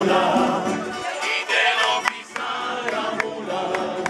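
A folk string group strumming and plucking guitars and other plucked string instruments together, with men's voices singing along.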